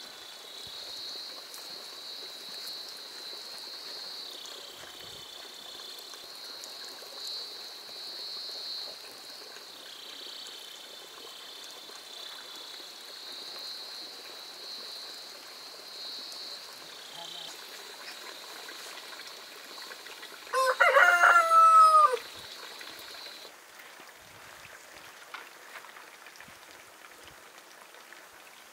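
A rooster crows once, near three-quarters of the way through, a call of about a second and a half that drops in pitch at the end. Beneath it a steady high-pitched whine runs on and stops shortly after the crow.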